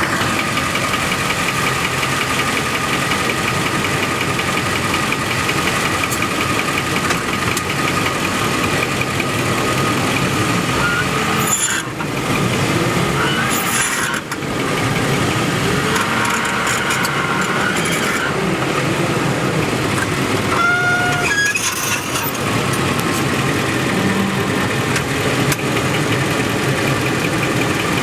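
Front drivetrain of a 2004 Ford F-150 4x4 grinding and scraping as the truck turns on dry pavement, over the running engine, with brief dips about twelve and fourteen seconds in. The noise comes from a front differential left without oil.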